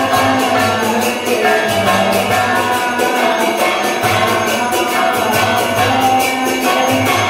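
Devotional music: held sung or played tones over a quick, steady jingling beat like a tambourine or small bells.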